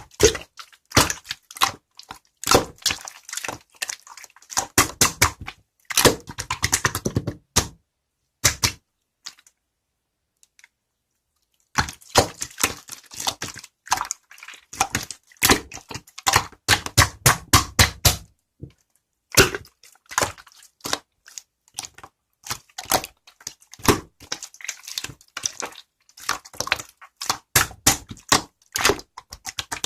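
Marbled slime being squeezed and poked by hand, giving rapid sticky clicks and small pops in runs. There is a pause of about four seconds roughly a third of the way through.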